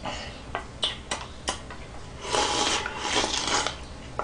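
A person eating ramyeon noodles: a few short sharp clicks of chopsticks against a plastic bowl and of the mouth, then a long slurp of noodles, starting about two seconds in and lasting a second and a half.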